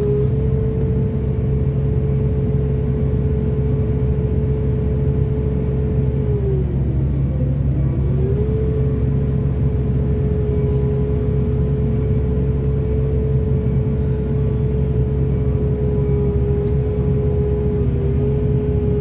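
Heavy excavator's diesel engine running steadily with a deep rumble; about seven seconds in, its pitch sags for a couple of seconds and then comes back up.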